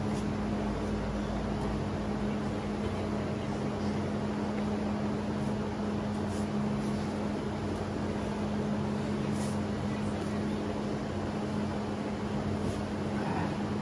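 A steady mechanical hum: one constant low tone under an even rushing noise, with a few faint clicks scattered through it.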